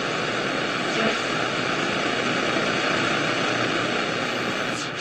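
Steady FM static hiss from the speaker of a 1968 Panasonic RE-6518 transistor radio as its dial is tuned between stations.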